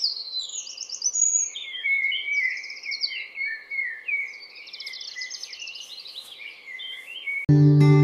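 Birdsong: a songbird's continuous, rapid warbling chirps and fast trills, softer in the second half. Acoustic guitar music comes in near the end.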